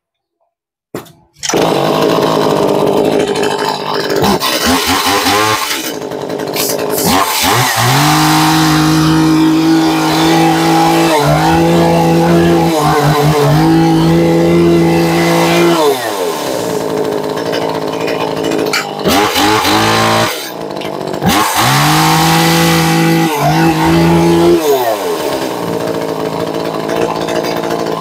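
Tanaka 33 cc top-handle two-stroke chainsaw running, revved up to high speed several times and held a couple of seconds each time, dropping back to a lower, rougher idle between.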